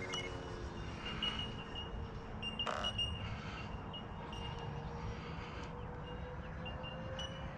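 Freewing PJ50T electric ducted-fan RC jet flying at a distance: a faint steady whine that slowly shifts in pitch, heard over wind noise on the microphone. Short high beeps come now and then.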